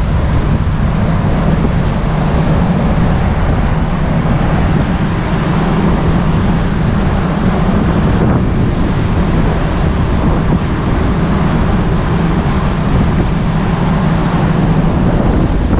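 Wind rushing over the microphone on the open deck of a moving car ferry, over the ship's steady low engine hum.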